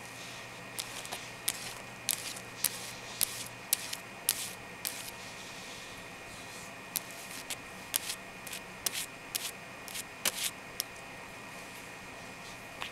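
Long natural fingernails clicking and scratching: an irregular run of sharp clicks with a few short scratchy strokes, thinning out after about eleven seconds.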